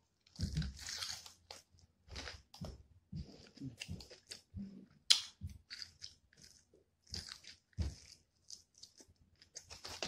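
Close-miked chewing and biting into fried Wingstop chicken wings: irregular crunches and wet chewing, with one sharper crunch about five seconds in.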